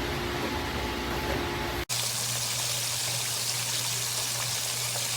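Steady hiss of food sizzling in an electric skillet over a low hum, starting with an abrupt cut about two seconds in from a lower, rumbling noise.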